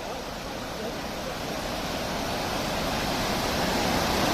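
Floodwater of a swollen river rushing, a steady noise that grows gradually louder.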